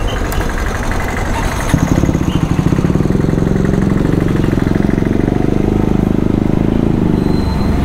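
A motor vehicle's engine running, its pulsing note growing stronger and louder about two seconds in, then holding steady.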